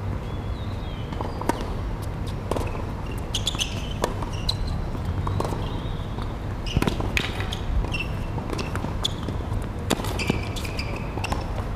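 Tennis rally on a hard court: racket strikes and ball bounces as sharp pops about every second or so, with short high squeaks in between.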